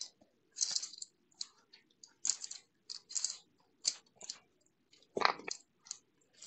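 Plastic shipping bag crinkling and rustling in short, irregular bursts as it is pulled and torn off a cardboard box, with one louder burst about five seconds in.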